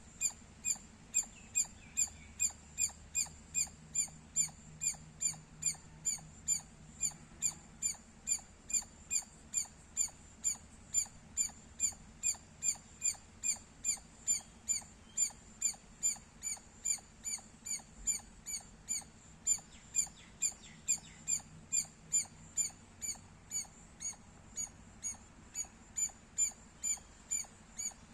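An Indian palm squirrel chirping: a long, even series of short, high-pitched chirps, about two a second.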